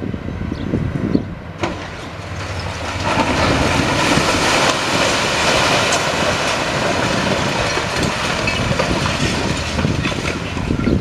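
A section of a concrete and brick building breaking away under a demolition excavator. Rubble pours down in a long, dense crashing rumble from about three seconds in until near the end, over the excavator's diesel engine.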